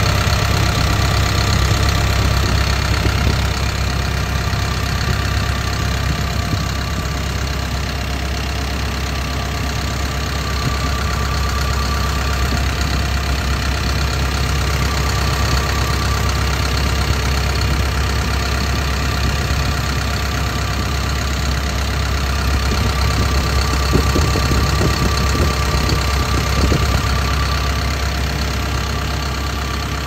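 Caterpillar C4.4 four-cylinder diesel engine of a Cat 312F excavator running steadily at idle, with its oil filler cap off.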